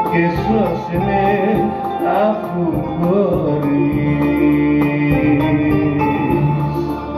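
A man sings a Greek song into a microphone with wavering, ornamented phrases, accompanied by bouzouki and synthesizer over a steady beat.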